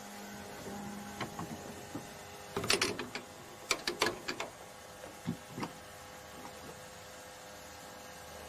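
Petrol pump at work: a low steady hum that stops about a second in, then a quick run of mechanical clicks and clatters, with a couple of softer knocks after it.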